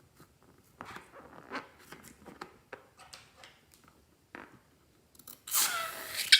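Scattered small crackles and clicks of handling, then about five and a half seconds in a louder rush of hissing noise with a falling tone.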